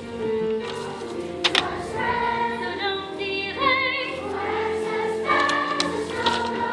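Musical-theatre chorus: a group of voices singing together over instrumental accompaniment.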